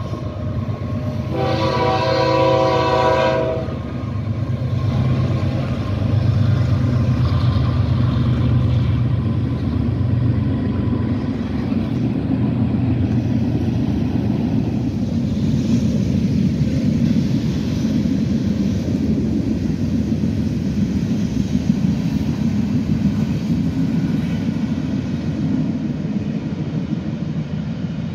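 BNSF northbound manifest freight train passing: the diesel locomotive's horn sounds one blast of about two and a half seconds about a second in, then the steady low noise of the freight cars rolling past.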